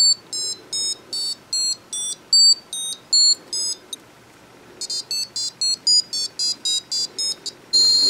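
Piezo speaker chip on a programmed Arduino-type board beeping short, high electronic notes of changing pitch, about three a second. After a brief pause the beeps resume faster, about four a second, and near the end they give way to a steady high tone. The board sets each pitch from the voltage it reads through the circuit.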